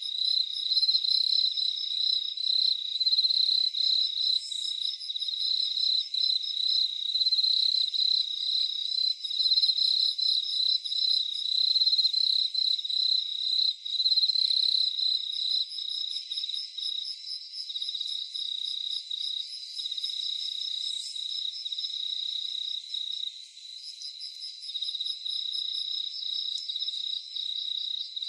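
Crickets trilling together in a steady night chorus: one dominant high pulsing trill with fainter, higher trills layered over it. The chorus eases slightly past the middle.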